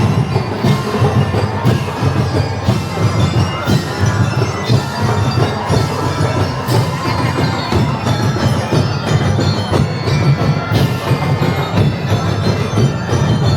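Music with bell-like chimes over a steady beat.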